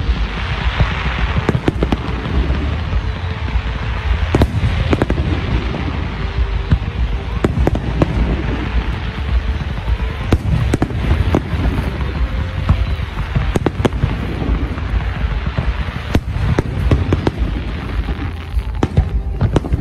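Fireworks display: a dense, continuous barrage of shell bursts with many sharp bangs, a steady low booming and crackling.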